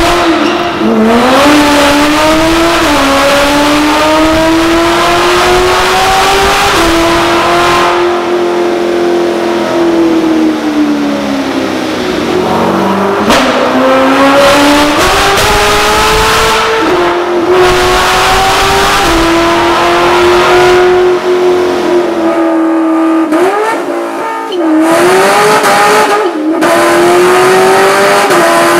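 Katech 700 hp 427 LT V8 in a Corvette Grand Sport, running loud at high rpm through mid-length headers. Its note climbs, holds high and drops back several times as it is revved or run through the gears.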